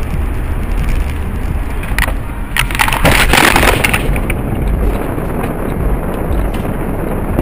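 Car collision heard from inside the car: sharp knocks about two seconds in, then about a second of loud crunching and breaking about three seconds in, over a steady low rumble of road and cabin noise.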